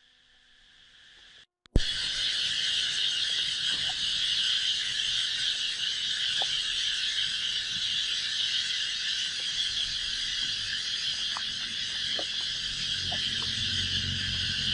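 Near silence, then from about two seconds in a steady, high-pitched chorus of insects, with a few faint ticks; a lower rumble joins near the end.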